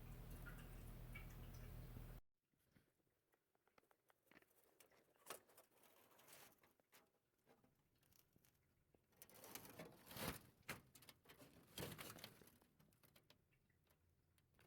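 A steady low hum cuts off abruptly about two seconds in. It is followed by faint, scattered clicks and rustling, with a few louder crackles.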